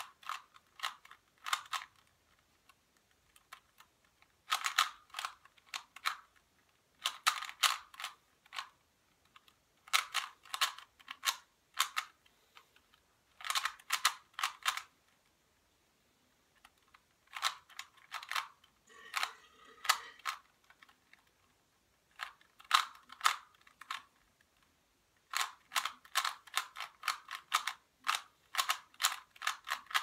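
Plastic 3x3 Rubik's cube clicking as its layers are turned quickly by hand, in bursts of several turns separated by pauses of a second or more, during the last stages of a solve.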